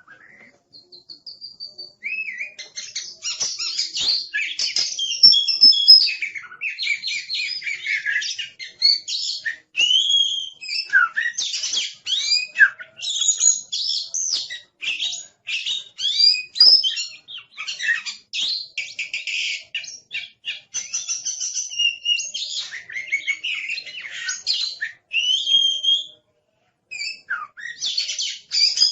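Oriental magpie-robin (kacer) singing hard and almost without a break: a fast, varied stream of whistles, chirps and rasping notes, with a short pause near the end. It is the noisy, aggressive song that bird keepers call 'galak'.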